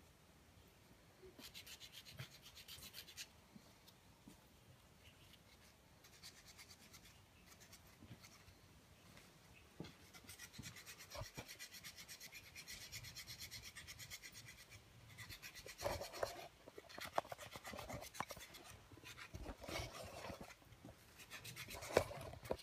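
A small hand tool scraping and filing a small piece of bone, shaping it for inlay work, in faint runs of quick rapid strokes. Now and then a few sharper clicks, the loudest near the end.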